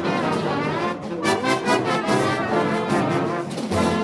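AI-generated marching band sound effect: a brass section of trombones and trumpets playing together.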